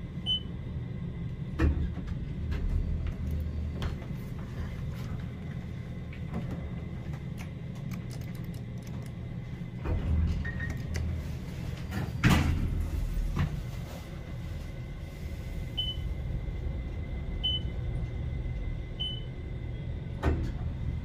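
Interior of an Otis traction elevator car: a steady low hum from the car, with the doors sliding, several knocks and clunks (the loudest about twelve seconds in), and a few short high beeps.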